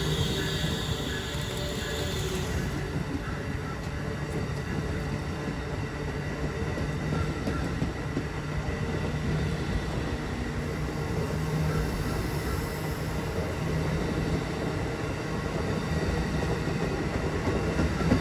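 Amtrak Avelia Liberty (Acela 2) high-speed trainset passing, a steady rumble and rush of wheels on rail as its coaches go by.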